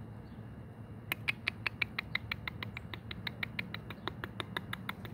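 Chickens pecking at feed, beaks tapping a hard dish in a quick run of sharp clicks about six a second, starting about a second in.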